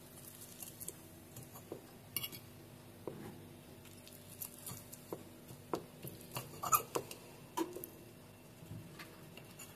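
Faint, scattered clinks and taps of cutlery on a plate while a bite is eaten, with a few sharper clinks past the middle.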